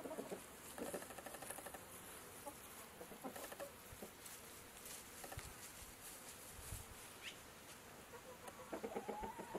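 Domestic chickens clucking faintly, with short calls scattered through and a brief high chirp, and a louder run of clucking near the end.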